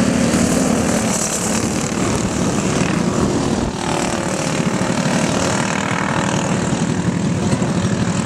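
Racing go-kart engines buzzing at high revs, their pitch falling and rising as the karts brake for the corners and accelerate out of them.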